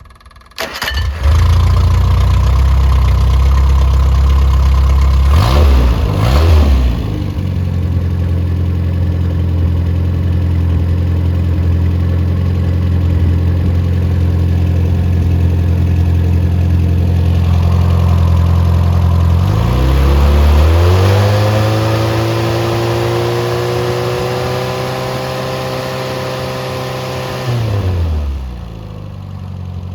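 Freshly rebuilt MG Midget 1500 four-cylinder engine running loudly. It is blipped briefly about six seconds in, then held at a raised speed for several seconds and let drop back to idle near the end.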